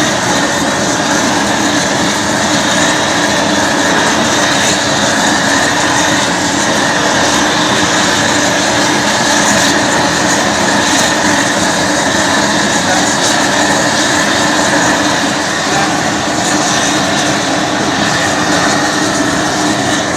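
A large gas torch burning steadily with a constant roar of flame, heating a copper boiler for silver soldering.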